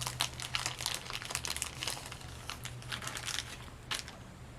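A new paintbrush's packaging wrapping being crinkled and pulled open by hand: a run of quick crackles, busiest in the first two seconds and thinning out after.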